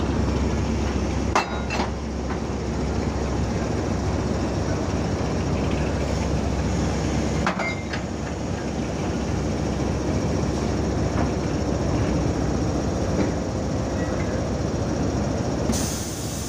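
Diesel locomotive engine running with a steady low rumble. There are sharp metal clanks twice in quick succession about a second and a half in, and again at about seven and a half seconds, while the coach is being coupled to the locomotive.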